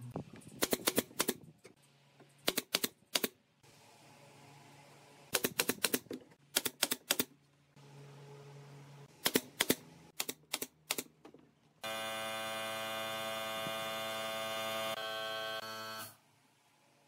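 Pneumatic brad nailer firing in quick runs of three to five shots, about six runs in all. Near the end a louder steady buzzing drone lasts about four seconds and cuts off suddenly.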